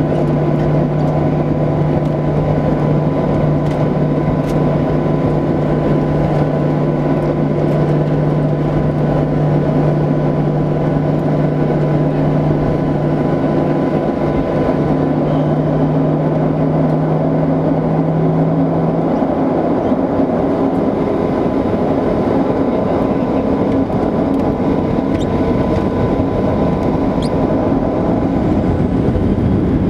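Cabin noise inside a Boeing 737-800 taxiing: the engines run at low taxi thrust under a steady rumble. A low steady drone stops about two-thirds of the way through, and a fainter high tone continues.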